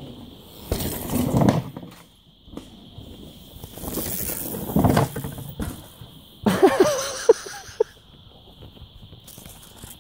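A mountain bike comes down a dirt trail past a wooden ramp, its tyres making several noisy rushes over the dirt. The loudest comes about six and a half seconds in, with a few short squeals and sharp clicks. A steady high-pitched whine runs underneath.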